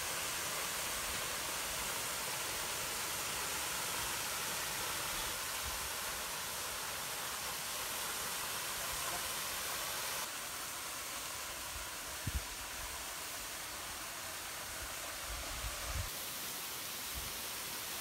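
Dandwa waterfall, about 100 feet high, making a steady rushing hiss of falling water. About ten seconds in it becomes slightly quieter, and a couple of brief low bumps come through.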